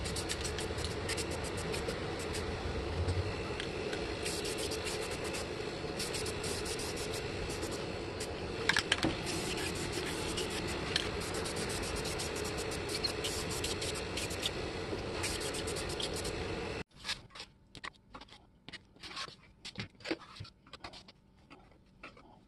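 Aerosol spray can hissing steadily as a coat is sprayed onto cast iron parts, with many small clicks through it. It cuts off abruptly about seventeen seconds in, and faint small metal clicks and scrapes of toothed disc rollers being handled follow.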